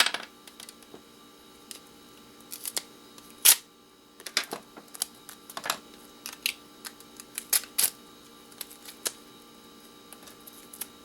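Small screws and bits of metal scrap being picked up and dropped, a series of irregular sharp clicks and clinks, the loudest about three and a half seconds in.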